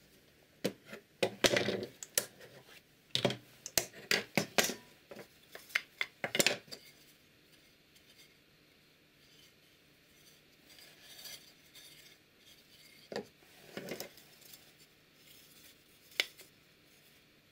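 Quick-release bar clamps being released and taken off a clamped wooden joint and set on a wooden workbench: a fast run of plastic and metal clicks and clacks. Quieter handling and rubbing of wooden pieces follows, with a few knocks of wood on wood.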